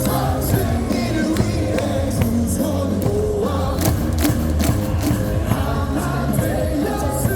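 Loud stadium cheer music with a steady heavy bass, and a crowd singing along with sharp hits recurring on the beat.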